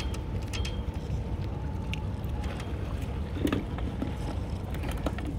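Wind buffeting the phone's microphone, a steady low rumble, with scattered light clicks and taps.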